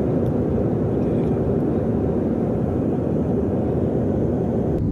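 Jet airliner in flight heard from inside the cabin: a steady, low, even rush of engine and airflow noise.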